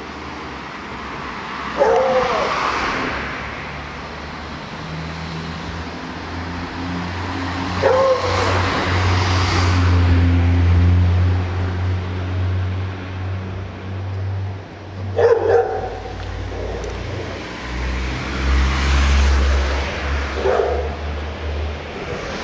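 A dog barking four times, several seconds apart, over the low steady rumble of a vehicle engine.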